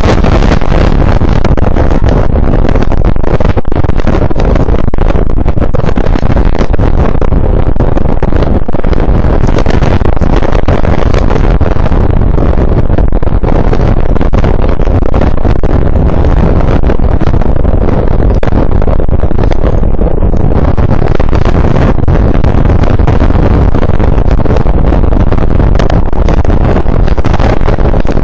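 Hurricane-force wind blowing hard on the microphone: a loud, unbroken rumble that is heaviest in the lows and flickers with gusts.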